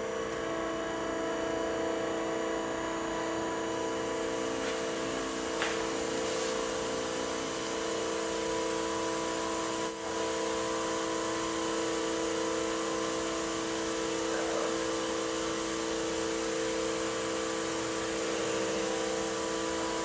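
Air-powered Shelby tube extruder running as it pushes a soil core out of the tube: a steady hum with several tones, joined a few seconds in by an airy hiss.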